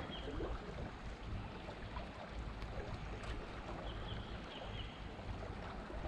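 Low steady noise of shallow river water flowing, with faint rustling close by.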